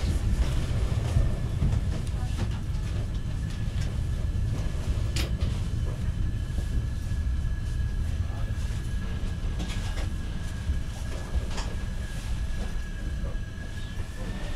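Sleeper train heard from inside the carriage, rolling slowly into a station with a steady low rumble. A thin steady squeal runs over it and rises slightly near the end, and a few single clacks come from the wheels over rail joints.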